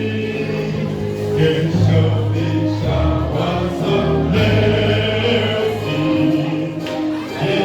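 Gospel music with a choir singing over a strong, steady bass line.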